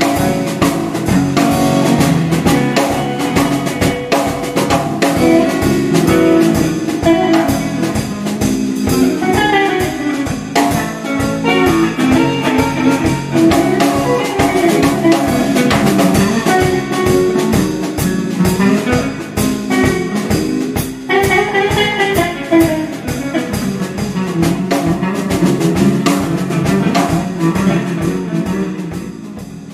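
Band music: guitar playing over a drum kit with a steady beat, getting quieter near the end.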